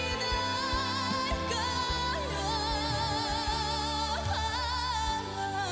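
A woman singing a Korean trot ballad, holding a long wavering note with vibrato over a steady band accompaniment.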